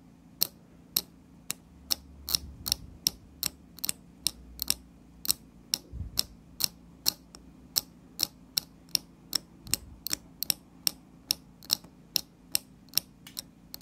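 Pointed knife blade scraping solder mask off the end of a copper PCB trace in quick short strokes, about three light scratchy clicks a second, baring the copper ready for tinning.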